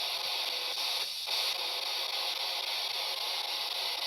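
Spirit box scanning through radio frequencies, giving a steady hiss of radio static with a brief break about a second in.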